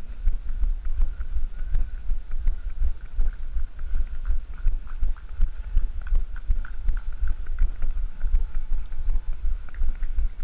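Footfalls of the runner carrying the action camera, thudding in a steady running rhythm of about three strides a second, with wind rumbling on the microphone.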